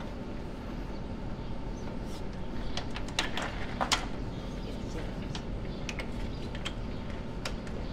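Hydraulic hose ends and plugs being handled and clicked into the rear couplers of a tractor: a scattering of short sharp clicks and clacks, the loudest about three to four seconds in, over a steady low hum.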